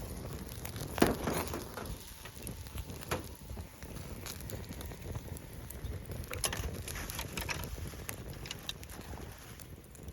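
Steady rushing of a waterfall, with scattered sharp crackles and clicks over it; the loudest comes about a second in.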